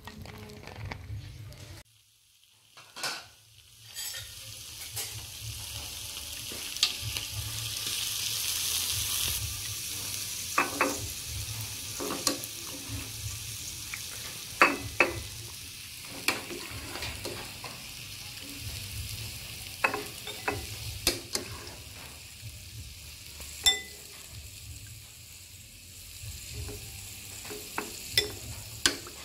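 A metal ladle scooping vegetable soup with fish balls from an aluminium pot and serving it into a bowl, clinking sharply against pot and bowl many times over a steady hiss.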